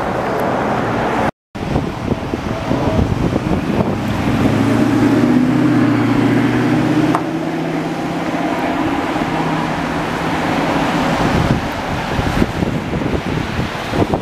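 Steady low engine drone over a haze of wind and traffic noise, loudest from about four to eleven seconds in, with a brief dropout about a second and a half in.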